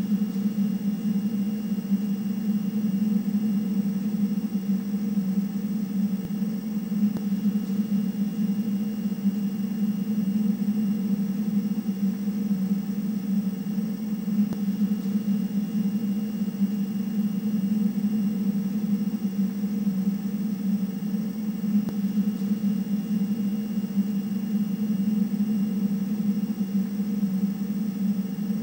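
A steady low hum with a faint thin high whine above it, the ambient drone of a spacecraft interior in a film soundtrack; it holds unchanged throughout.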